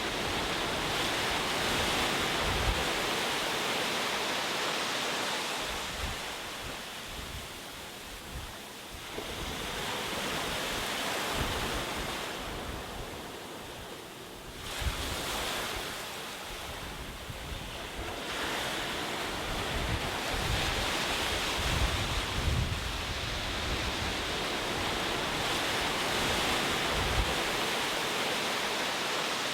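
Ocean surf: waves breaking and washing up the shore, the wash swelling and ebbing, with brief lulls about a third of the way in and again near the middle.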